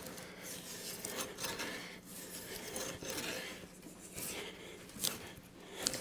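Drawknife scraping bark off a green ponderosa pine log, in a run of short, uneven strokes.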